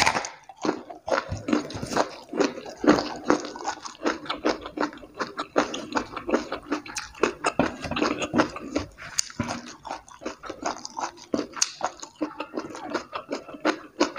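Close-miked chewing of a raw round green eggplant and other raw vegetables, with a crisp bite at the start followed by steady wet, clicky chewing, several chews a second.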